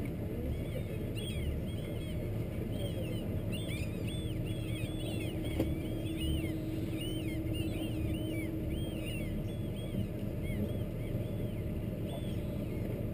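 Birds chirping, many short arching calls several a second, over the low steady rumble of a sailboat's inboard diesel engine running slowly.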